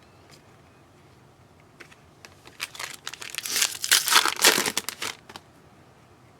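Foil trading-card pack wrapper being torn open and crinkled. There are a few crackles about two seconds in, then a dense, loud crinkling that stops about a second before the end.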